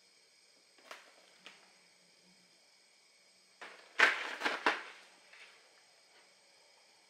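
Plastic and cardboard shop packaging being handled: two light knocks, then about four seconds in a brief flurry of clattering and crackling as a blister-packed card is picked up.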